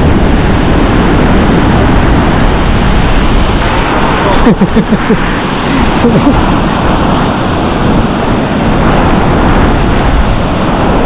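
Wind buffeting the microphone over the wash of surf in the shallows, a loud steady rushing noise. A few brief voice sounds come through about four and a half seconds in.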